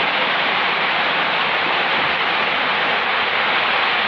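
Loud, steady rushing noise that stays even throughout, with no knocks or pitched tones in it.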